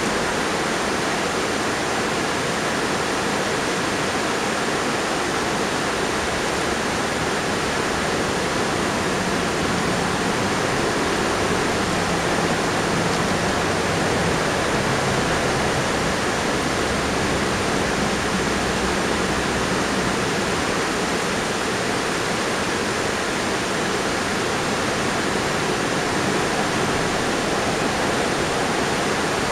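Steady rushing of a river flowing over rocks, an even, unbroken wash of water noise.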